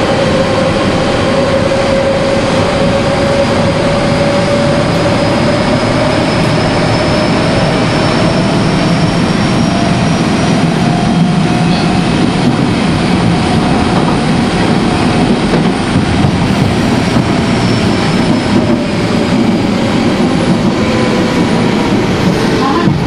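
Nagoya subway train on the Meikō Line running between stations, heard from inside the car: a steady rumble of wheels on rail with a motor whine that rises slowly in pitch, holds through the middle, then drops away near the end.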